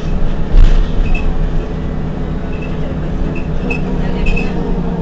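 Heuliez GX 127 city bus running, a steady engine drone with scattered light high squeaks and rattles. A thump comes about half a second in.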